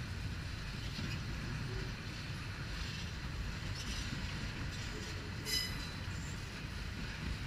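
Empty double-stack container well cars of a freight train rolling past, a steady low rumble of steel wheels on rail. About five and a half seconds in, a wheel gives a brief high squeal.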